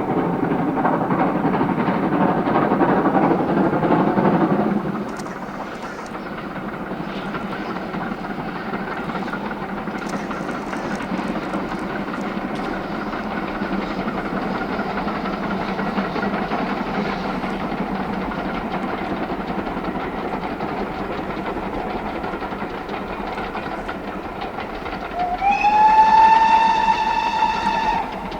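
LMS Stanier Mogul 2-6-0 steam locomotive 42968 and its train running, loud for the first few seconds and then suddenly quieter and steadier. Near the end it sounds its steam whistle once, a single note that swoops up at the start and is held for a couple of seconds.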